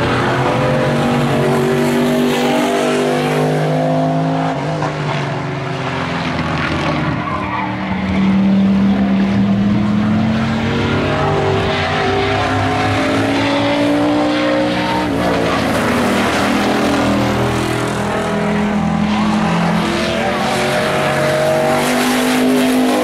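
Engines of several pickup race trucks running hard around an oval, their pitch rising and falling as they accelerate and back off through the laps.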